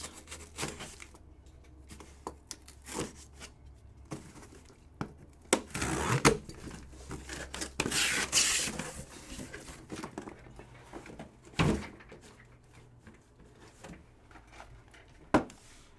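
Hands handling trading-card boxes and packaging on a table: scattered knocks and clicks, with a brief rustle about eight seconds in and a sharper knock near the end. A faint low hum runs underneath.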